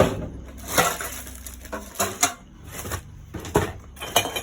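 Discarded household items clattering and knocking as they are rummaged through in a dumpster: about six sharp knocks at irregular intervals, with rustling in between.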